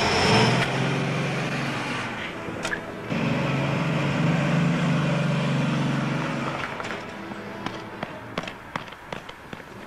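A car engine running: it sounds twice, for the first two seconds and again from about three to nearly seven seconds, then fades. A few sharp clicks follow near the end.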